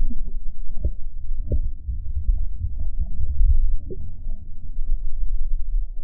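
Muffled low rumble of sea water and wind buffeting the microphone, with a few soft knocks.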